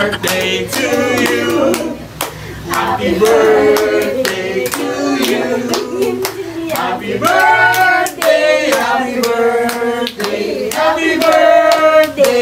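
A group of people singing a birthday song together, with hand claps keeping time throughout.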